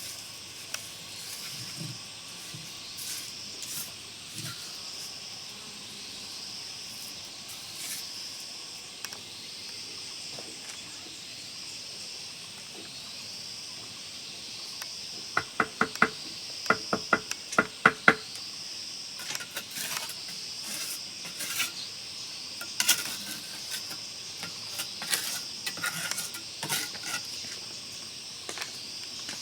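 Insects chirring steadily in a high, pulsing chorus that swells about once a second. Halfway through comes a quick run of about ten sharp clicks, with scattered light taps near the end.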